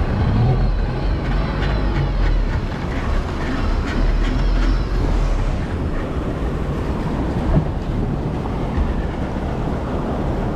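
Steady rumbling noise of surf washing around a small fishing boat, with heavy wind buffeting on the microphone and the boat's outboard motor running as it pushes out through the breaking waves.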